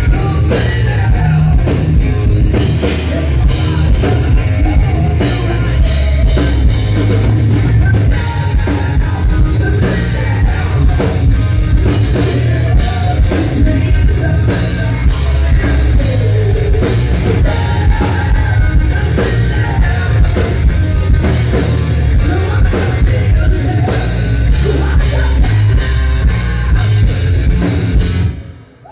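Hard rock band playing live at high volume: distorted electric guitar over a pounding drum kit and bass. The music cuts off abruptly near the end.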